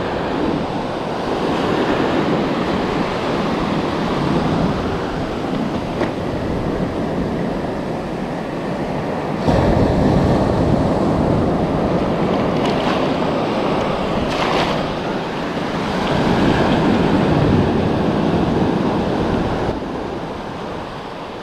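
Small surf breaking and washing up over the sand, swelling and easing, with wind buffeting the microphone. The wash gets suddenly louder about halfway through.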